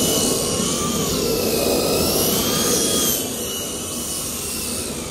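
Double Horse 9116 RC helicopter running: a high electric-motor whine over the rotor noise, its pitch rising and falling as the throttle changes. It gets a little quieter about three seconds in.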